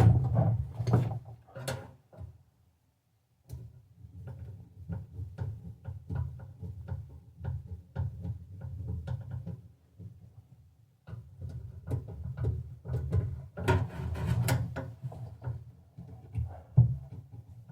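Irregular clicks and knocks of things being handled and set down, over a low rumble, with two brief silent gaps.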